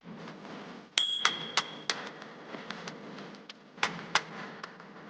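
Scattered sharp clicks and taps over steady background noise; the first, about a second in, carries a brief high ringing tone.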